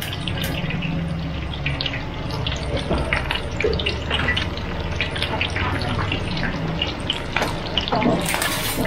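Whole short mackerel (pla thu) deep-frying in a wok of hot oil: a steady sizzle with many small crackles, and a louder burst of hiss near the end.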